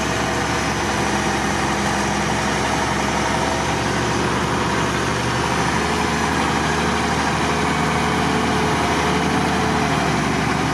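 Mercedes Unimog truck engine idling steadily at a low, even pace. A faint steady whine joins for a few seconds in the middle.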